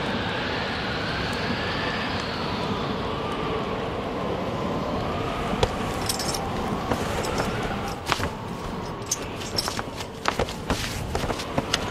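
A steady rushing noise, then from about eight seconds in a scatter of short metallic clinks and jingles from the harness and armour of horsemen standing mounted.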